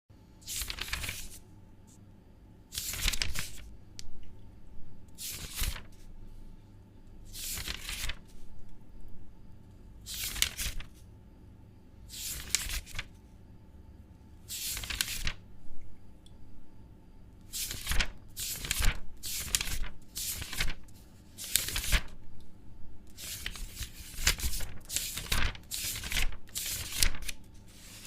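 Sheets of paper being torn: a long series of short rips, a couple of seconds apart at first and about once a second in the second half.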